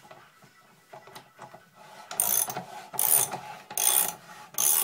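Socket ratchet wrench cranking the lead screw of a 3D-printed vise under load as it is tightened on a tin can. After a couple of quieter seconds with a few faint clicks, bursts of ratchet clicking come about once a second as the handle is swung back and forth.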